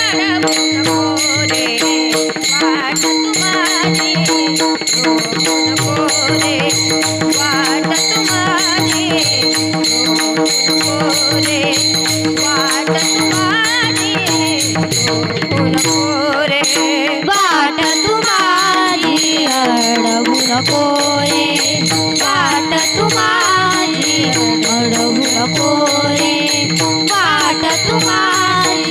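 Varkari kirtan music: a sung melody gliding up and down over a steady held drone, with hand cymbals (taal) jingling in a dense, even rhythm.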